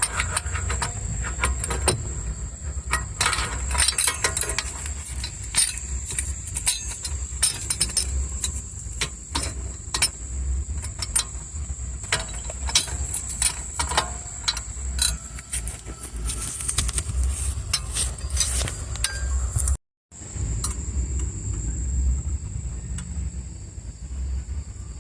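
Irregular metallic clicks and clinks of a torque wrench and socket worked on the wheel hub bolts. Underneath them are a steady low rumble and a steady high thin tone.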